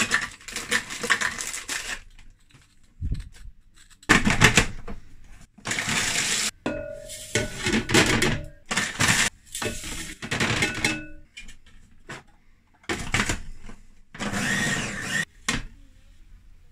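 Food processor run in short pulses, about seven bursts of a second or so each with pauses between, its blade chopping ginger nut biscuits and bread into crumbs. A packet of biscuits rustles at the start.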